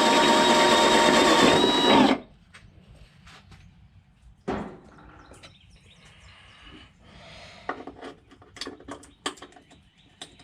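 Electric drill running as it bores into the sheet metal of a car's fender well to enlarge a hole, with a steady whine, then stopping abruptly about two seconds in. Quieter clicks and light scraping follow as the drill and workpiece are handled.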